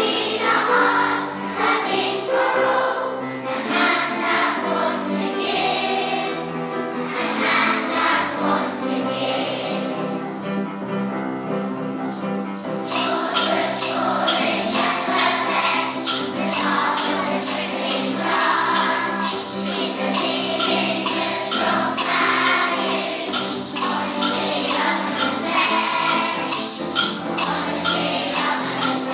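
A school song sung by a group of voices over backing music. About 13 seconds in, as the chorus starts, jingling percussion comes in on a steady beat.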